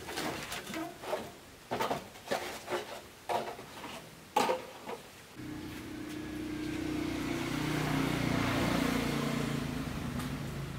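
Irregular knocks and clanks of a rusty sheet-metal crusher hopper being handled. About five seconds in, a steady low mechanical hum starts abruptly and slowly swells.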